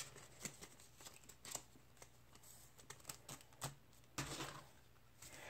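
Faint, scattered rustles and soft clicks of paper money and a ring binder's envelope pockets being handled, with a slightly busier patch about four seconds in.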